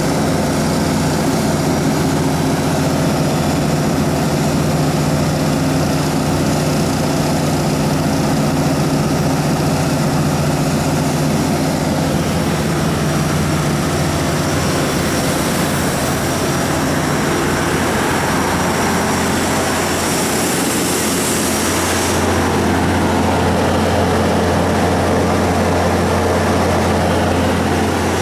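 John Deere 6090HF485 inline six-cylinder diesel engine of a Magnum MMG320 generator set running steadily inside its sound-attenuated enclosure, driving the generator, which is putting out voltage. A brief rise in hiss about three-quarters of the way through.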